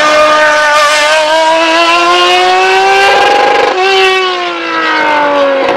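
Sports prototype race car engine pulling hard out of a hairpin, its pitch climbing steadily for about three seconds. After a brief break a little past halfway, the pitch falls steadily toward the end.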